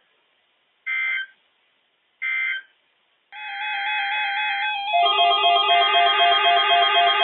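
Two short bursts of NOAA Weather Radio SAME end-of-message data tone, a buzzy two-tone warble about a second and a half apart, the code that closes the alert broadcast. About three seconds in, electronic background music with a stepping melody starts, and it gets louder at about five seconds.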